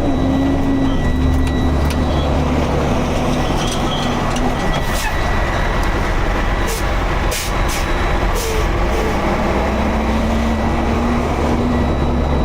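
Heavy tow truck's diesel engine running steadily, with a thin steady whine over it and a few short sharp sounds about five to nine seconds in.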